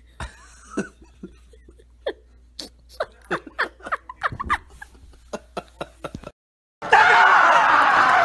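A person giggling in short, quick bursts, several falling in pitch, coming thickest in the middle. After a short break near the end, a louder, busier stretch of voices begins.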